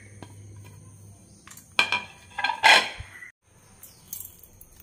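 A china plate clinking and scraping against a small steel bowl as grated coconut is pushed off it into the bowl, with a few sharp clinks and a low knock between about two and three seconds in.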